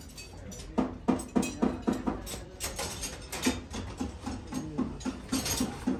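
A rapid run of sharp knocks, about three to four a second, over a steady low hum.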